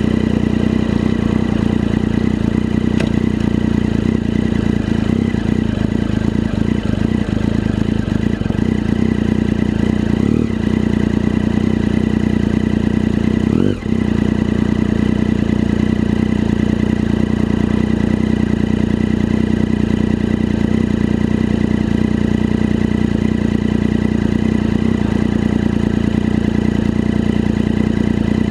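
Vehicle engine running steadily at an even pitch. It briefly drops and picks up again about halfway through.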